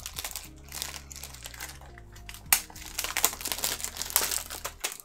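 Plastic packaging crinkling and rustling as a Blu-ray case is handled, in a run of irregular rustles and small clicks, with one sharp click about halfway through.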